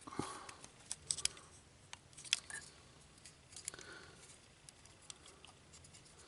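Small plastic model parts being handled and pushed together: scattered light clicks and short scrapes, a few seconds apart, as a piece catches on the plastic casing and won't seat.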